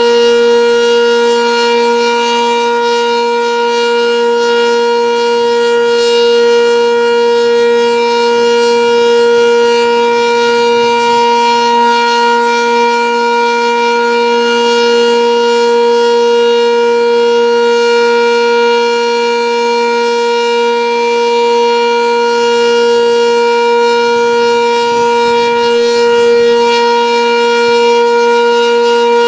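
Sentry 10V outdoor warning siren sounding the steady Alert signal: one unbroken, level tone with no rise or fall in pitch.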